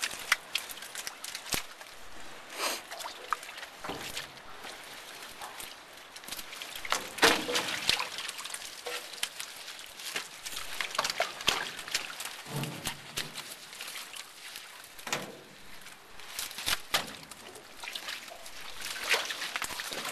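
Seawater splashing and dripping as a wet salmon gillnet is hauled over the side of an aluminium skiff, with irregular knocks and splashes from handling the net and fish.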